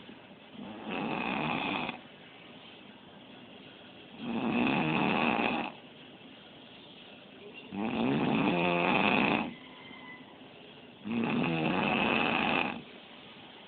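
A man snoring in his sleep: four loud, rasping snores, each about one and a half seconds long, coming about every three and a half seconds with quieter breathing gaps between.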